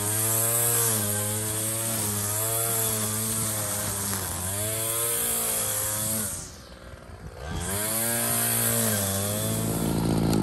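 Rebuilt MTD two-stroke string trimmer engine running at high revs under load while cutting grass, its pitch wavering as the line bites. About six and a half seconds in, the engine note drops away for about a second, then revs back up.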